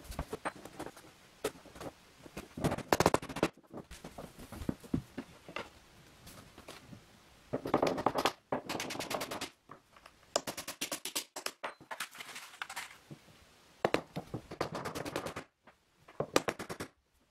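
Several short bursts of rapid clicking and scraping from hand-tool work on a small moulding along the wardrobe's base at the floor, with scattered lighter ticks in between.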